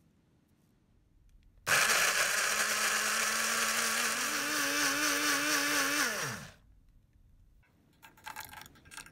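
Countertop blender motor starting suddenly and running for about four and a half seconds, puréeing red chillies with vinegar, sugar and salt; its pitch rises a little partway through, then it winds down when switched off. A few faint knocks near the end.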